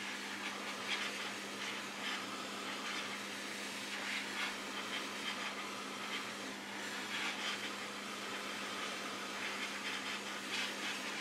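Hot air rework station gun blowing hot air onto a slot CPU circuit board, a steady hiss of air with a low hum underneath. The board is being preheated before the cache chip is desoldered.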